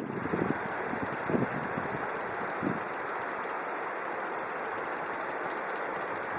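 Kaempfer cicada (niiniizemi, Platypleura kaempferi) singing: a continuous, shrill, high buzz with a fast, even pulsing.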